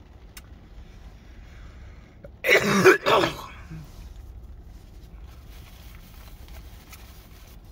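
A man clears his throat with a short, harsh cough about two and a half seconds in, brought on by spice in the fried chicken he is eating.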